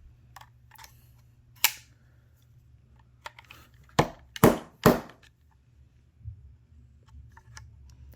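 Four sharp knocks as a screwdriver held against a guide pin in a plastic cupholder assembly is banged on a tabletop to drive the pin in flush: one knock, then about two seconds later three in quick succession, with faint small clicks between.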